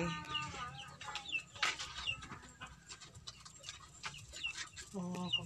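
Chickens clucking, with short high chirps scattered through and a pitched call near the start and again about five seconds in; a few light clicks.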